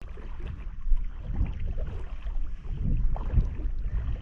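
Wind buffeting the microphone: a low, gusting rumble that rises and falls irregularly, outdoors over open water.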